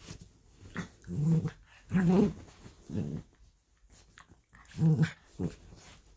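Miniature dachshunds play-fighting, giving five or so short low growls with a quiet gap in the middle.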